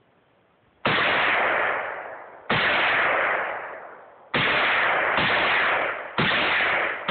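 Bipod-mounted rifle fired six times at a steady pace, one to two seconds apart, starting about a second in. Each loud shot is followed by a long tail that dies away.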